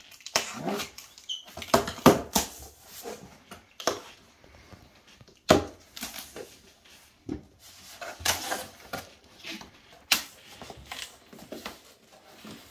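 Cardboard shipping box being opened: a blade slitting the packing tape, the flaps folded back and crumpled brown paper packing pulled out. The result is a run of irregular rustles and scrapes with a few sharp cardboard knocks, the loudest about five and a half seconds in and again about ten seconds in.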